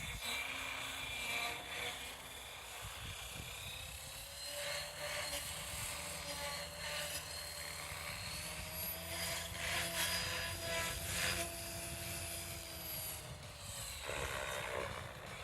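Align T-Rex 550X electric RC helicopter running, its motor and rotor whine rising and falling in pitch, with a few louder surges about two-thirds of the way through.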